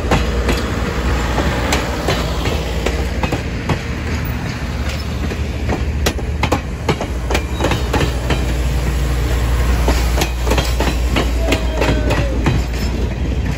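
Excursion train's railroad cars rolling, with a steady low rumble and irregular sharp clicks of wheels over rail joints, and a brief faint wheel squeal near the end.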